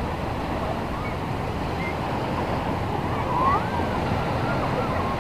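Small waves washing onto a shallow sandy beach, a steady rush of surf, with faint distant voices of people in the water; one voice rises briefly about three and a half seconds in.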